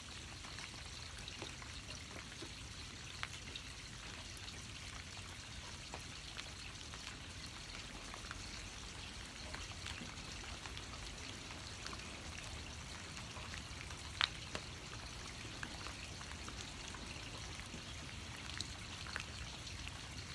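Steady rain pattering, with scattered drips and one sharper tick about 14 seconds in.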